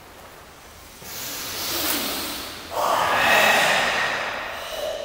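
Karateka doing loud forced Goju-ryu breathing (ibuki): a hissing breath builds from about a second in, then a stronger, longer forced exhale starts just before the three-second mark and fades away near the end.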